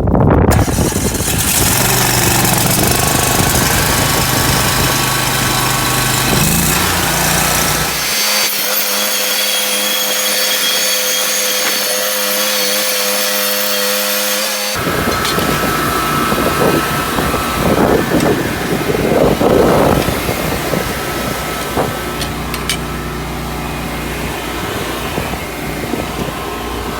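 Small engine of a sawmill running steadily while milling a log into a 6x6 post. The sound changes abruptly about eight seconds in, losing its low rumble, and again near fifteen seconds.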